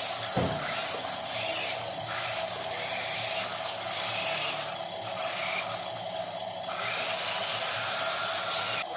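Electric drive of a metal RC construction model whining steadily, with dirt and metal scraping that comes and goes, and a single knock about half a second in.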